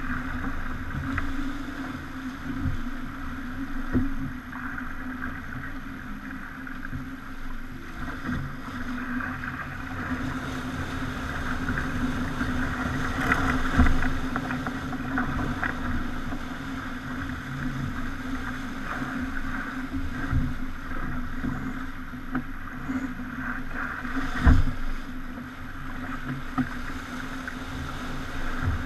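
Pogo 30 yacht under way at sea: a steady low drone under a fluctuating hiss of water, with a few sharp knocks, the loudest near the end.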